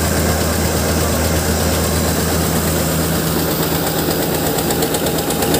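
Eicher 241 tractor's single-cylinder diesel engine running steadily, powering a flour-grinding mill.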